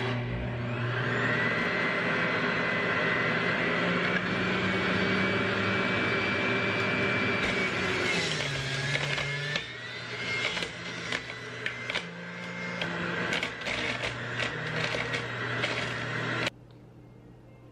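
Breville centrifugal juicer's motor starting at the press of its button and running with a steady whine. About eight seconds in, as produce is pushed down the chute, the pitch sags and recovers, followed by a clatter of clicks as the pieces are shredded. The motor cuts off suddenly near the end.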